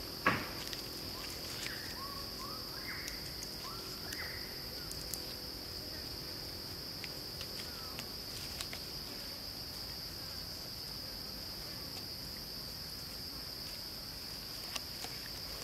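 Steady high-pitched drone of insects, crickets or cicadas, with a sharp knock just after the start, a few short rising chirps in the first few seconds and scattered faint clicks.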